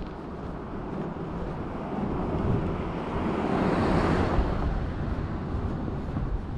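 A car passing close by: its tyre and engine noise swells to a peak about four seconds in, then fades. Low wind rumble on the microphone runs underneath.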